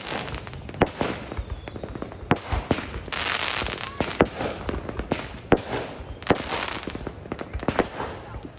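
Fireworks show: a rapid string of sharp bangs as shells burst, with crackling hiss between them, densest a few seconds in.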